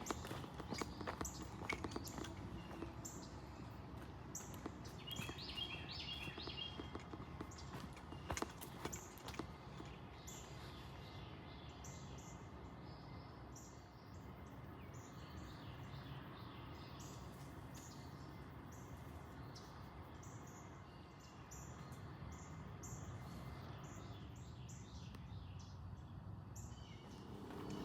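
Outdoor park ambience: footsteps on a trail, with birds chirping, most clearly about five seconds in, over a steady background hum.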